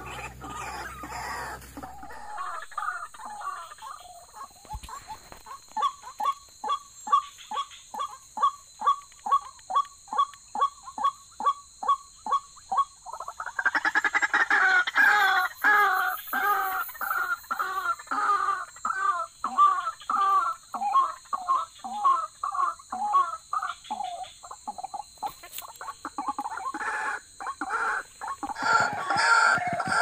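White-breasted waterhen calls: short croaking calls repeated about twice a second, turning louder and denser about a third of the way in, easing off, then picking up again near the end.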